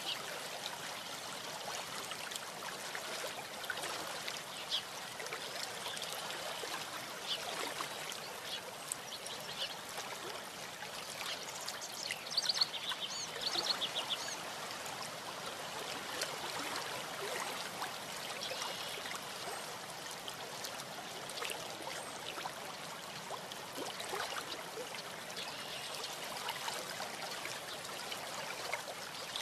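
Steady hiss of outdoor background noise on a nest webcam's microphone, with a short burst of rapid high ticking or clacking about halfway through.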